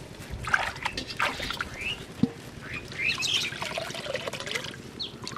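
Water splashing and trickling as a small shrimp net is lifted out of a river, with a few short high chirps and a falling call over it.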